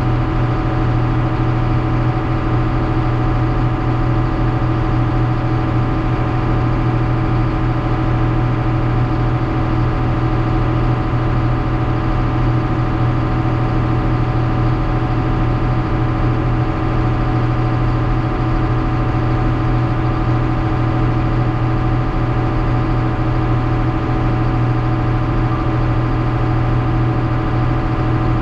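Engine idling steadily while it warms up.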